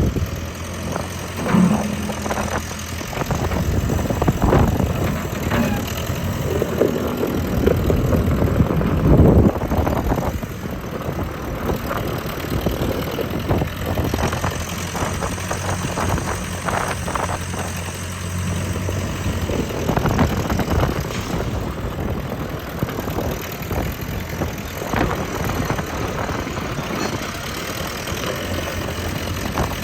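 Hydra-Mac skid steer's engine running steadily at idle, with irregular clanks and knocks over the engine note, busiest in the first ten seconds.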